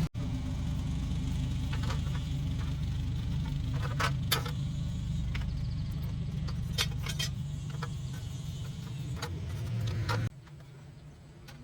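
A machine running with a steady low hum that cuts off abruptly about ten seconds in, with several short metallic clinks over it.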